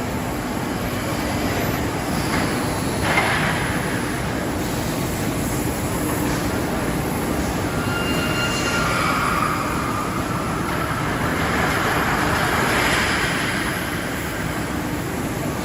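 Steel grating forging machine line running: steady industrial machine noise, with a sharp knock about three seconds in and brief high metallic squeals near the middle.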